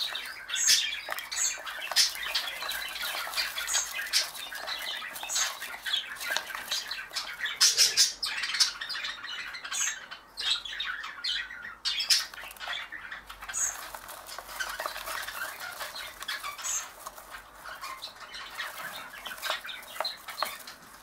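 A box of young birds giving rapid, high-pitched begging calls as they are hand-fed, with wings fluttering and rustling in the wood shavings. The calls are loudest about eight seconds in.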